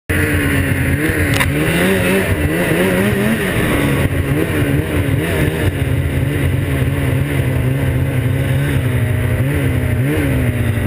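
Snowmobile engine running under throttle while riding over snow, its pitch wavering and gliding up and down as the throttle changes.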